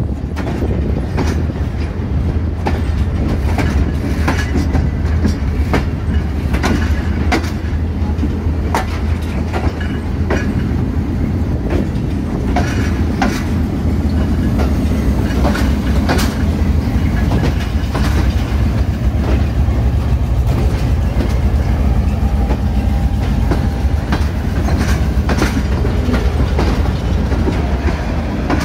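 Passenger train coaches rolling into a station, heard from an open coach door: a steady low rumble with the wheels clicking irregularly over rail joints and points.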